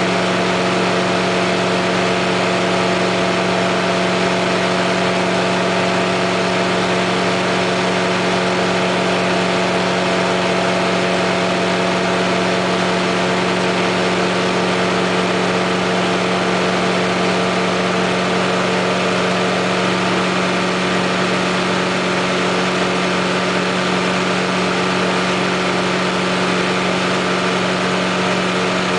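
Just Aircraft Highlander's engine and propeller running steadily in flight, heard from inside the cockpit as a constant drone with a strong low hum.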